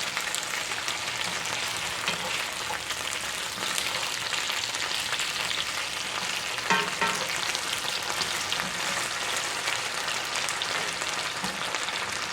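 Potatoes and onions frying in a cast-iron skillet: a steady crackling sizzle, with a brief louder sound about seven seconds in.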